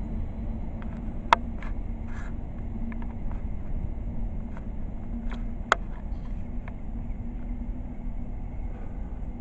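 Container wagons of a freight train rolling along the track, a steady rumble with a faint low hum, broken by two sharp clacks, one about a second in and one just under six seconds in, and a few lighter ticks.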